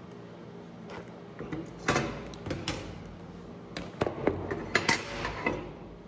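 A steel bar being handled and set down on a steel welding table: a string of sharp metal clinks and clanks starting about two seconds in, thickest in the second half, over a low steady hum.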